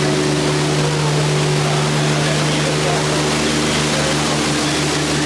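Jungle Cruise tour boat's motor humming steadily under an even rushing hiss.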